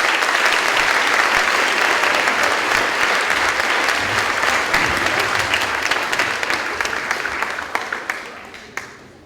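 Audience applauding with many hands clapping, steady for several seconds and then dying away near the end.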